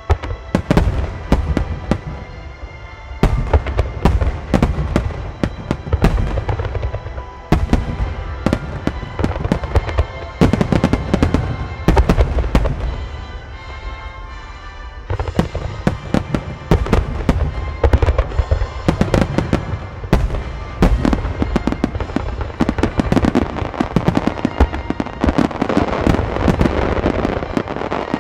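A large star mine fireworks barrage: rapid volleys of shells bursting and launching one after another, with a brief thinner spell about halfway and a dense crackling barrage near the end. Music plays underneath.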